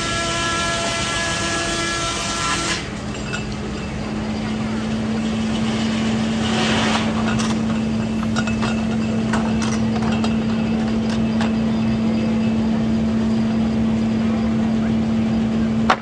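Steam-powered sawmill running with a steady whine that drops to a lower steady hum about three seconds in. A burst of sawing noise comes around seven seconds, with scattered knocks and clatter afterwards.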